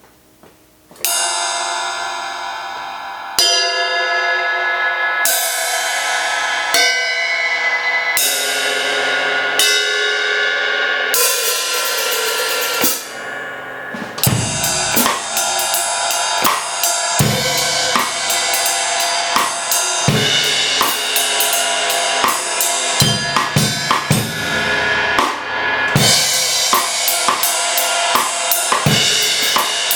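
Zildjian A Custom cymbals struck one at a time, each left to ring and decay, starting about a second in. From about halfway through, a full drum-kit groove comes in with bass drum, snare and steady cymbal and hi-hat strokes.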